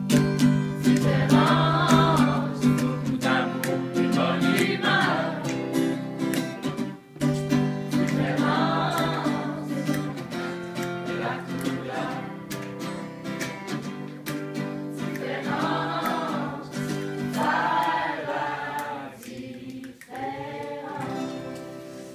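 A group of voices singing a song together in unison, accompanied by a strummed acoustic guitar. It gets quieter toward the end as the song winds down.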